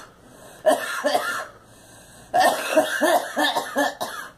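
A girl coughing in fits: a short bout of a couple of coughs about a second in, then a rapid run of about six hacking coughs.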